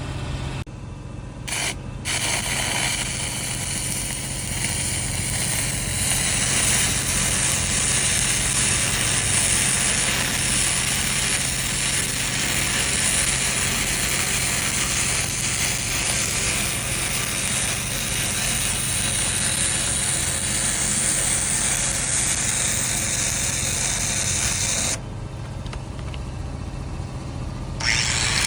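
Stick (shielded metal arc) welding arc crackling steadily as an E6010 root pass is run on a 3-inch pipe flange, with a steady low hum underneath. The arc breaks off briefly about a second in and again for about three seconds near the end, then strikes again.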